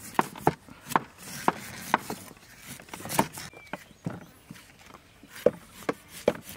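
Cleavers chopping and shaving the fibrous husks of young coconuts against wooden stumps: irregular sharp chops, about one or two a second, with some scraping between them.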